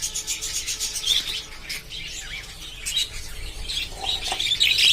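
A flock of budgerigars chattering, with many short, high chirps overlapping.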